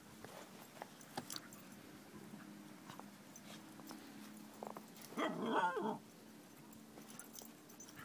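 Dog gives one short growling bark, about a second long, roughly five seconds in, the sound of two dogs at play. Faint crunching of footsteps in snow around it.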